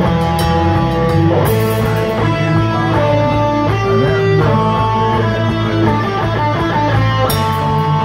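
Live rock band playing loud, with electric guitar holding and changing sustained notes over a steady bass and drums. A cymbal crash comes about a second and a half in and another near the end.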